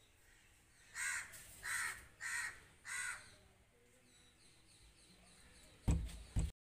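A bird calls four times in quick succession, about two-thirds of a second apart. Near the end come two loud low thumps.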